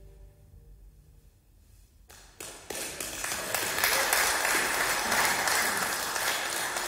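The last held chord of the violins, cello and double bass fades away, and about two seconds in an audience starts clapping, quickly building to steady applause.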